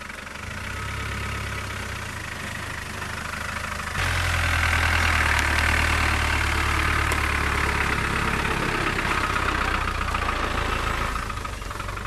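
Land Rover Discovery's 200Tdi 2.5-litre four-cylinder turbodiesel running at low speed with a diesel clatter as the vehicle crawls past. About four seconds in it gets much louder as it comes alongside, with hedge foliage brushing and scraping along the windscreen and bodywork.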